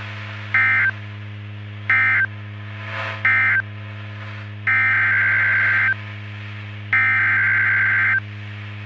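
EAS/NOAA Weather Radio SAME data bursts, over a steady low hum. Three short screeching bursts about a second and a half apart close out the tornado watch as its end-of-message code. Then, about a second later, the first two of three longer bursts begin, the header announcing the next alert.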